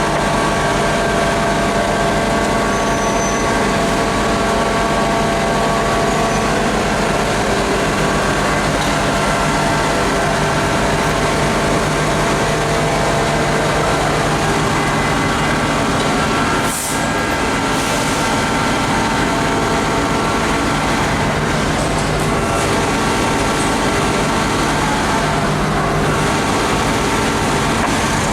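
Fire truck engine running steadily, a loud constant drone with several held tones, dipping briefly once a little past the middle.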